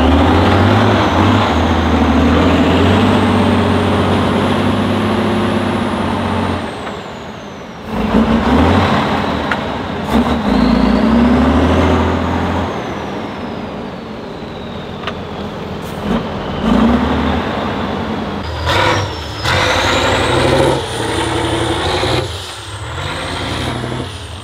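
Heavy 6x6 trial truck's diesel engine revving hard under load, its pitch rising and falling, with a thin high whistle that climbs and falls with the revs. The engine drops away sharply about seven seconds in, then picks up again, and near the end it is broken up by several short dips and knocks.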